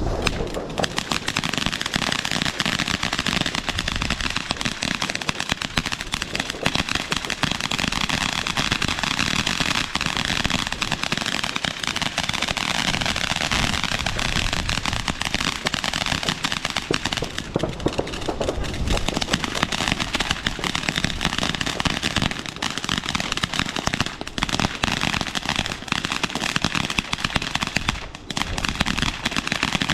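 Fireworks going off in a rapid, unbroken stream of bangs and crackles, with a brief lull near the end.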